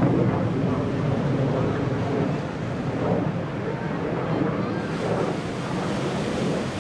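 MiG-17PF single-turbojet fighter flying overhead in an aerobatic pass, its engine a steady rushing jet noise heavy in the low end that eases slightly in loudness.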